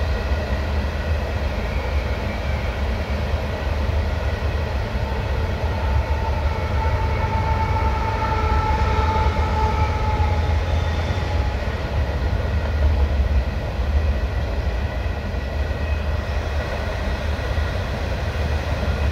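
CN Rail freight train of covered hopper cars rolling steadily across a bridge, a continuous low rumble of wheels on rail over the rush of river rapids. A thin high tone swells and fades about eight to ten seconds in.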